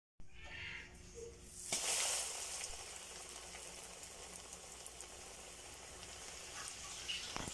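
Breaded jackfruit piece going into hot oil in a frying pan: the oil bursts into loud sizzling a little under two seconds in, then settles into steady deep-frying sizzle.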